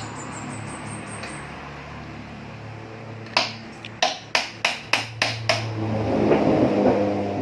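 Noodle-machine assembly work: a run of about seven sharp taps or clicks, about three a second, starting a little after halfway, over a low steady hum.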